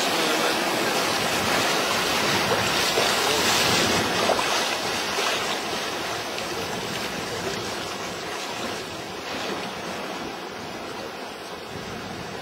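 River rapids rushing and splashing past the side of an inflatable raft, a steady noise that is loudest for the first few seconds and then slowly fades as the raft moves into calmer water.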